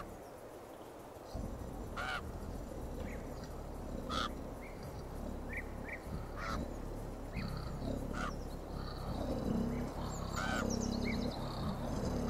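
Birds calling: short sharp calls about every two seconds over a low steady hum, with busier honking calls toward the end.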